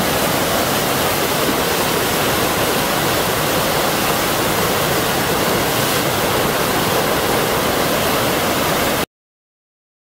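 Steady rush of churning whitewater, a loud even roar of turbulent water that cuts off suddenly about nine seconds in.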